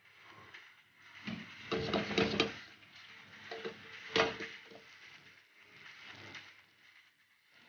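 Butter and a utensil knocking against a hot pan, with a cluster of knocks about a second and a half in and one sharp knock about four seconds in, the pan ringing briefly after each. Faint sizzling follows as the butter melts and foams.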